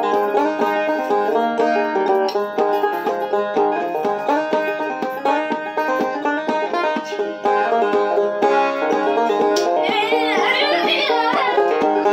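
Morgan Monroe five-string banjo played solo, a steady run of quick plucked notes, with a brief wavering high tone about ten seconds in.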